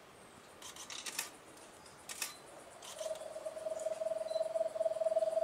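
Giant Antpitta singing: a low, hollow trill of rapid pulses on one pitch, starting about three seconds in and rising slightly as it goes. A few sharp clicks come before it, about a second and two seconds in.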